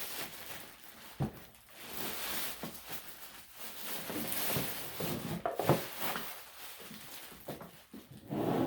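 Rustling and handling of packaging, with several short knocks as pressure-washer parts are taken out of the box.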